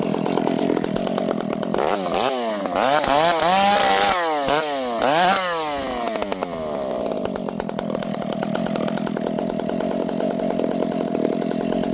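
Piped Dolmar 7300 two-stroke chainsaw running, revved up and down several times from about two to six seconds in, then running steadily.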